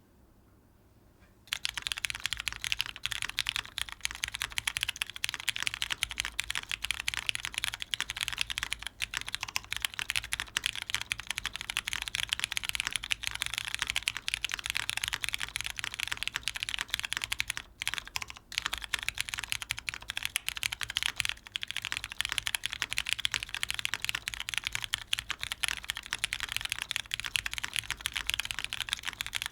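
Continuous fast typing on an O-ring-mounted TKL custom mechanical keyboard with lightly lubed Cherry MX Brown tactile switches, a full polycarbonate plate and GMK doubleshot ABS keycaps. The typing starts about a second and a half in, with a short break a little past halfway.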